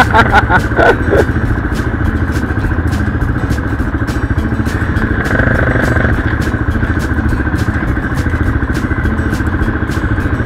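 Off-road motorcycle engine running steadily at low revs close by, with a fine rapid pulse. A short burst of loud, rapid pulses comes in the first second.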